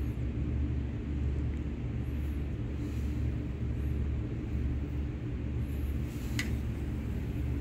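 JLG 1250AJP boom lift's engine and hydraulic pump running steadily with a low drone while the boom valves go through their automatic calibration. A faint click comes near the end.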